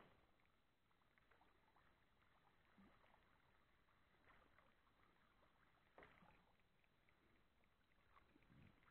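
Near silence, with faint scattered small knocks and water sounds from a boat on calm river water; one is slightly louder about six seconds in.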